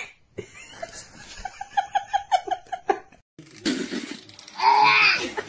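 A person giggling in a quick run of high-pitched bursts, about seven a second. After a short break, a louder burst of voice follows near the end.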